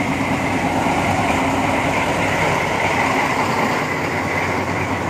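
Engine of an 1800-horsepower diesel locomotive running steadily close by, an even, unbroken hum.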